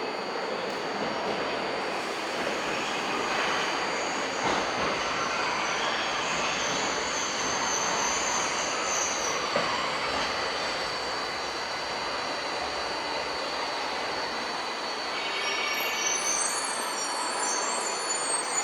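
Tokyo Metro 1000 series subway train running in the station: a steady rumble, with high-pitched squeals about six seconds in and again near the end.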